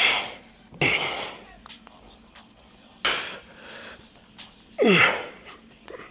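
A man's forceful, breathy exhales while hitting flexing poses, four sharp blasts of breath, two of them ending in a short falling grunt.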